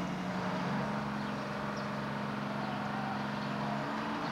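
Wheel loader's diesel engine running steadily as it pushes against a leaning wooden grain elevator to topple it, with an even engine note that shifts slightly near the start and near the end.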